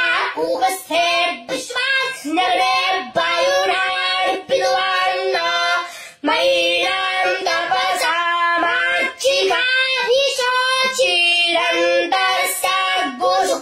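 A young boy chanting Vedic mantras, holding each syllable on one of a few steady pitches, with short breaks for breath and one longer pause about six seconds in.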